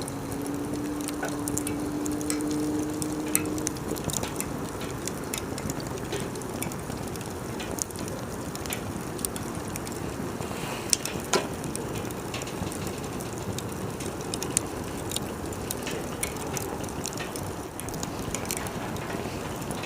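Wood fire crackling, sharp pops scattered irregularly over a steady rushing noise of the burning, the loudest pops about eleven seconds in. A faint steady tone sounds under it for the first few seconds, then stops.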